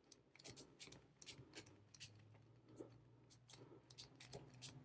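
Faint, irregular clicks of a four-wheel combination bike lock's number wheel being turned notch by notch while the shackle is pulled under tension, each number being tested for binding.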